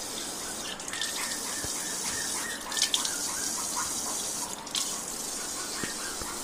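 Sink tap with a spray-head attachment running, water spraying and splashing onto a puppy's wet fur and into the sink as a steady hiss, briefly louder about three seconds in.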